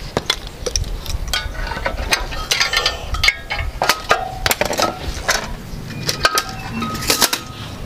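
Metal clinks and scrapes as a loosened clutch pressure plate and clutch disc are worked off the flywheel by hand. It is an irregular series of sharp clanks, some with a brief ring.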